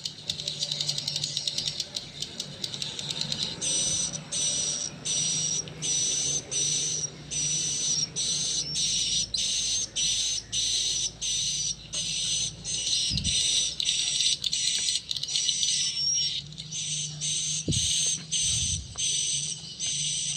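Recorded swiftlet calling sound (the SP AKAU 128 'suara panggil' lure) played through horn tweeters: high, rapid twittering chirps in short phrases that repeat about every two-thirds of a second, joined about four seconds in by a steady high whistle. A faint low hum runs underneath.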